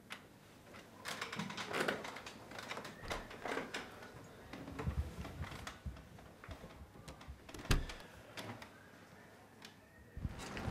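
Scattered light taps, clicks and rustles of small handling noises in a small room, at irregular spacing, with one sharper knock about three-quarters of the way through.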